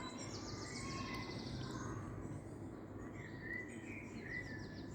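Outdoor birdsong: short high chirps in the second half and a rapid, very high trill near the start and again after about three and a half seconds, over steady low background noise.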